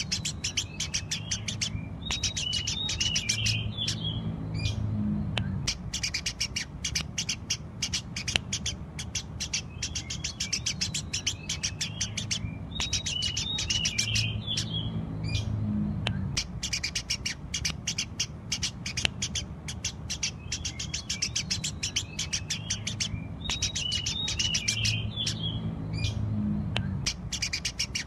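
Eurasian tree sparrows chirping rapidly and without a break, with short twittering runs that come back about every ten seconds.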